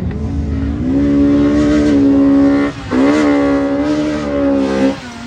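A car engine revved hard and held at high revs, dipping for an instant about 2.7 s in and pulling hard again, then backing off near the end.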